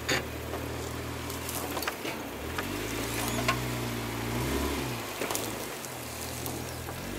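Jeep Wrangler JK's engine running under off-road driving, its pitch dropping and rising a few times as the throttle is worked, with scattered sharp clicks and knocks over it.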